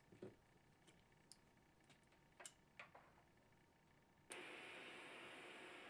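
Near silence with a few faint clicks, then about four seconds in a steady hiss that lasts about a second and a half and cuts off abruptly.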